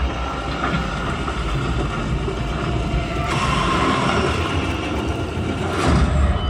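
Horror trailer soundtrack played over cinema speakers: a dense, noisy drone over heavy deep bass. It brightens about halfway through, swells to a peak near the end and then drops away.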